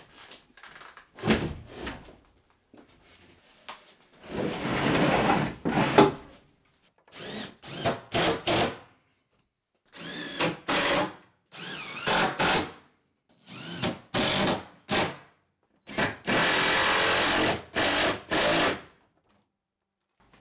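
Power drill running in a string of short bursts, about a dozen, with two longer runs of two to three seconds. Each one starts and stops abruptly.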